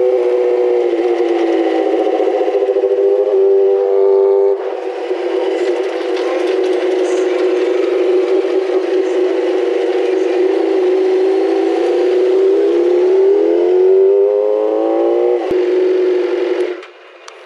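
Motorbike engine running hard at high revs, its pitch mostly steady, climbing a few seconds before the end and then cutting off abruptly.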